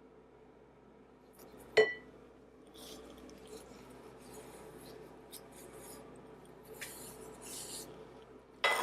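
Kitchen glassware and utensils being handled: a single ringing glass clink about two seconds in, then light scraping and rubbing, and a louder clatter near the end, as melted butter is added to a bowl of sugars.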